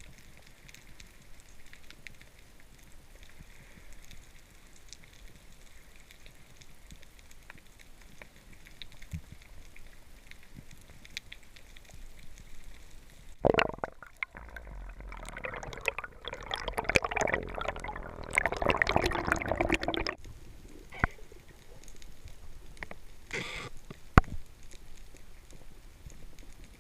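Underwater sound heard through a diving camera: faint crackling ticks, then a sharp click and about six seconds of loud bubbling and gurgling water that cuts off suddenly, followed by a few scattered clicks.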